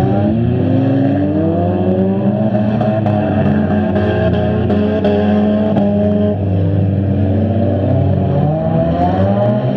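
Several stock front-wheel-drive car engines running and revving at once, their pitches rising and falling over one another.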